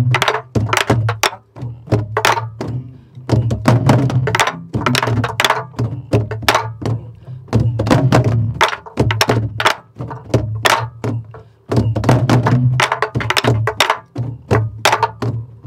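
A group of sori-buk pansori barrel drums played together in a jangdan rhythm cycle. Deep booms come from palms on the left drumhead, and sharp wooden clacks from sticks striking the drum's right side and shell, in phrases broken by short pauses.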